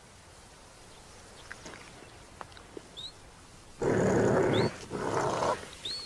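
Leopard growling: two short, rough growls about four and five seconds in, after a fairly quiet stretch.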